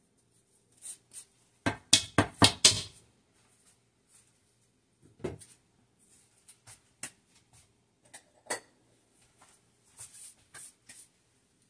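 A metal rasp grater knocking and clicking against a plastic mixing bowl as the lemon zest is tapped off it. There is a quick cluster of sharp knocks about two seconds in, then single taps a few seconds apart.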